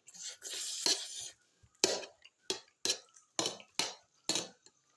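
Eating sounds from a meal of rice and curry eaten by hand: a brief rustling hiss, then a run of about six short, sharp clicks and smacks roughly half a second apart.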